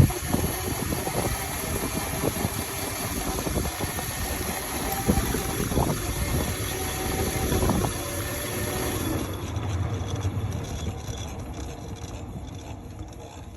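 Razor RSF650 electric mini motorbike being ridden: a high motor whine with rattling from the drivetrain and frame, the whine dropping away about nine seconds in as it eases off.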